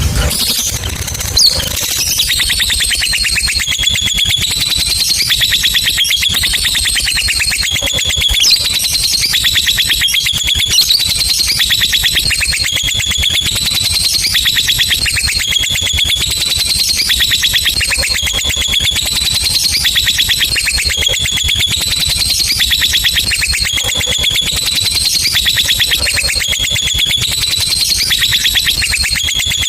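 Lovebird giving a long, unbroken ngekek: a rapid, high-pitched chattering trill that repeats in phrases of about a second.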